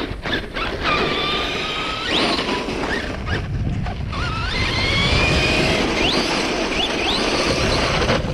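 Electric motors of radio-controlled Traxxas Slash trucks whining, the pitch sweeping up again and again as the throttle is punched. Under the whine is a steady rushing noise.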